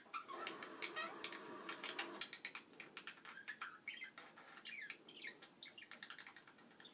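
Two budgerigars chattering softly as they feed each other beak to beak: short chirps mixed with a stream of quick clicks, busiest in the first two seconds.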